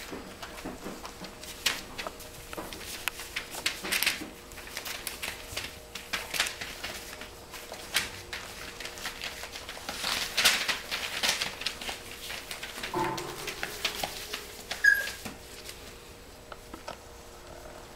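Five-week-old pointer puppies playing: irregular pattering and scrabbling of paws on paper-covered floor, with rustling and tugging at plush toys. A couple of short puppy vocal sounds break in past the middle, the second a brief high squeak.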